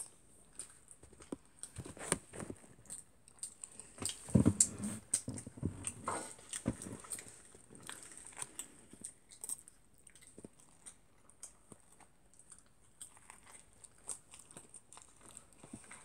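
A person biting and chewing food close to the microphone, with scattered small clicks and a few louder knocks about four seconds in. A faint steady high whine runs underneath.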